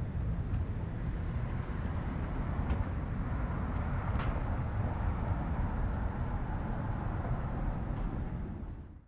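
Steady city street traffic noise with a heavy low rumble.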